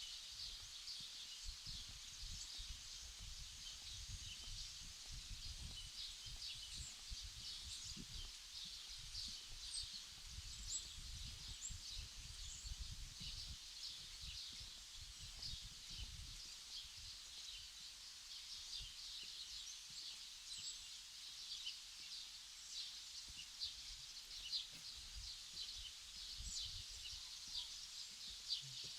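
Outdoor ambience: a steady, dense chorus of many quick high chirps, with an irregular low rumble underneath.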